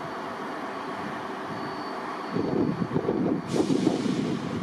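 Diesel trains running at a station: a Class 43 HST power car standing and a Class 170 Turbostar unit moving slowly past. The rumble grows louder and uneven in the second half, and a sudden hiss starts about three-quarters of the way through.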